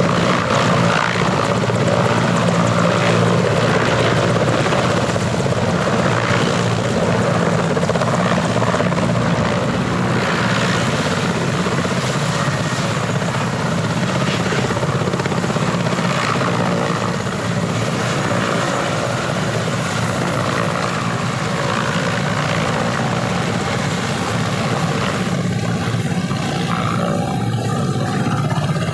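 Mil Mi-17 transport helicopter on the ground just after landing, its twin turboshaft engines and main rotor running steadily, a little quieter in the second half.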